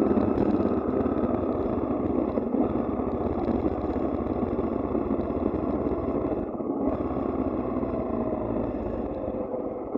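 Motorcycle riding on a wet road, engine running with steady wind and road noise that slowly fades as the bike slows down, the engine note falling in pitch.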